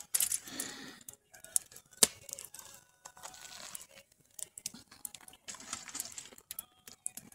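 Wood fire crackling in a metal fire pit, with irregular sharp pops, the loudest about two seconds in.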